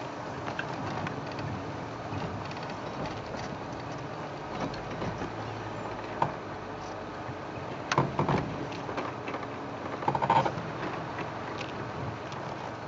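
Safari vehicle's engine running as it drives slowly along a rough dirt bush track, a steady hum with a few sharp knocks and rattles, the loudest about two-thirds of the way through.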